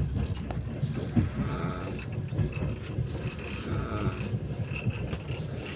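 A man snoring on a train, a rough, irregular rattle over a steady low rumble.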